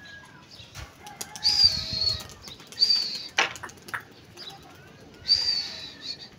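Three short, shrill whistle blasts, each under a second, from a pigeon flyer driving his released flock to keep flying, with a single sharp crack about halfway through.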